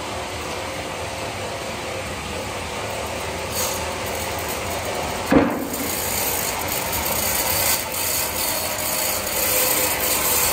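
Horizontal band sawmill running steadily, its band blade sawing through a large log. About halfway through there is one sharp knock, the loudest moment.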